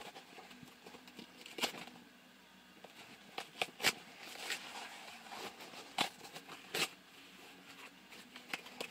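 Scattered taps and scrapes of cardboard packaging being handled, about five short clicks with quiet gaps between.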